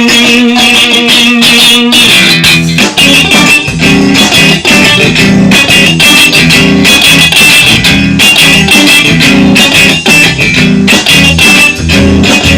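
Instrumental intro of a rock-pop song, led by guitar. Bass guitar and a steady beat come in about two seconds in.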